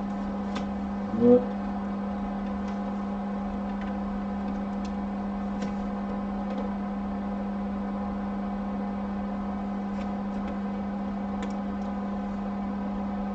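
Steady electrical hum from powered bench equipment on a phone repair bench, with a few faint clicks as the phone and its battery connector are handled. A brief vocal sound about a second in.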